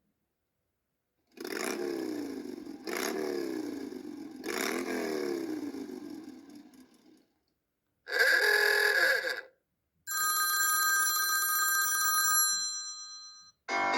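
iPhone 4S ringtones and alert tones playing in turn with short silent gaps. First a telephone-bell-style ring repeats three times; then a short tone; then a bright chime held for a couple of seconds; another tone starts near the end.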